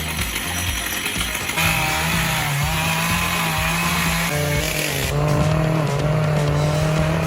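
Small engine-powered machine running hard, its pitch wavering and shifting a few times, with background music under it.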